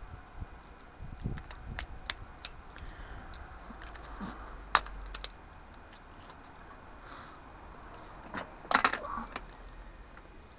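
Scattered small clicks and taps of metal and plastic parts and a screwdriver while a CD/DVD drive is taken apart, with one sharp click about five seconds in and a quick cluster of clicks near the end.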